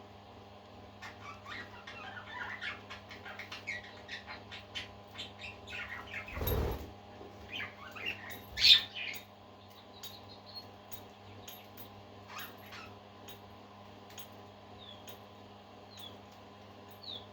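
Pet parakeets chirping in quick runs of short notes for several seconds, then only a few scattered chirps. There is a low thump about six seconds in, and a steady electrical hum underneath.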